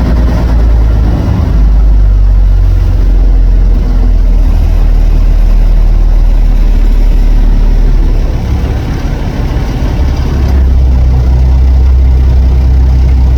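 Fishing boat's engine running underway, a loud steady low drone with rushing water and wind noise over it.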